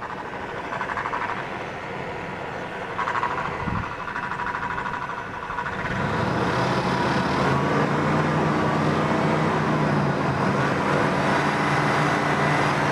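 Freshly rebuilt Chevy 350 (L31 Vortec) V8 running in the truck. About six seconds in, its sound grows louder and then holds steady at the higher level.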